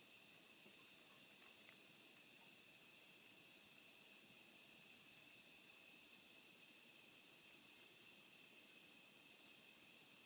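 Near silence: room tone with a faint steady high whine and a faint pulse repeating evenly above it. There are two faint ticks about a second and a half in.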